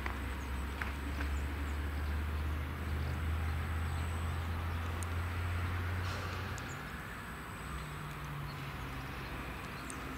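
Low, steady hum of an unseen engine, which weakens and shifts a little higher about two-thirds of the way through, with a few faint bird chirps over outdoor background noise.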